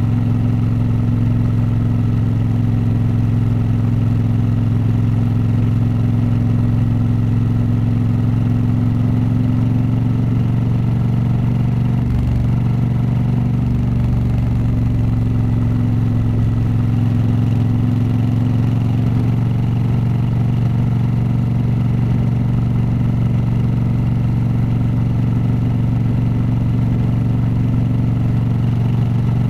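Honda CRF1000L Africa Twin's parallel-twin engine and exhaust running at a steady pitch, with only slight shifts in engine speed.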